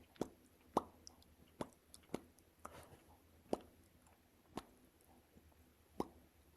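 Soft bubble-popping sounds made with the lips by a person, about eight separate small pops at uneven intervals.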